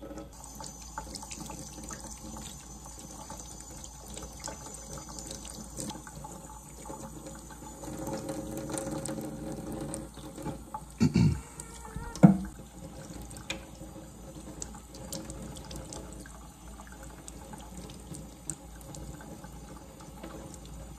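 Kitchen faucet running into a stainless steel sink, the water splashing as a newborn lamb is rinsed and rubbed under it by hand. Two brief louder sounds break in about halfway through.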